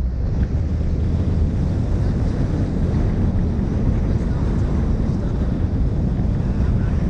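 Wind buffeting the microphone of a bonnet-mounted camera on a moving Mini Cooper S Roadster: a steady low rush, with the car's own driving noise underneath.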